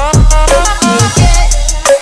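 Background pop/hip-hop music with a heavy bass drum, steady hi-hat and a synth melody.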